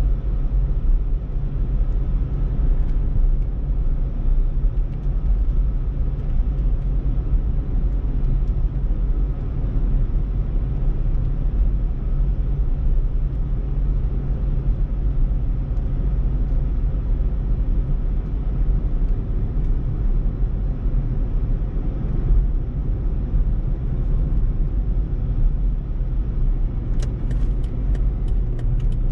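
Steady low road and engine rumble of a car driving at a constant speed, heard from inside the cabin. A quick run of light ticks comes near the end.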